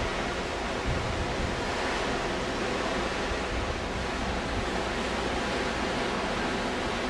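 Steady rushing noise of wind and sea as a cruise ship moves through the water, with an uneven low rumble of wind on the microphone.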